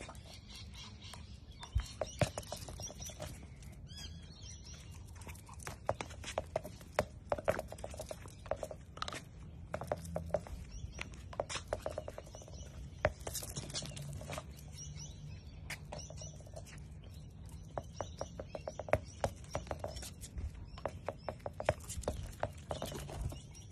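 A dachshund playing with a ball on concrete paving: rapid clicks and taps of its claws and the ball on the stone, coming in clusters. Birds chirp in the background.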